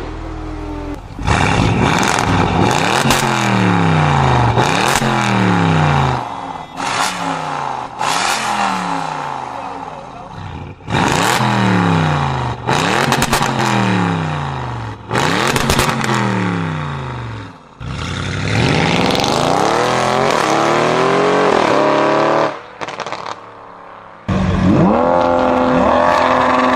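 Car engine revving, its pitch sweeping down over and over with a couple of rising runs later. The sound breaks off abruptly several times, as if cut together.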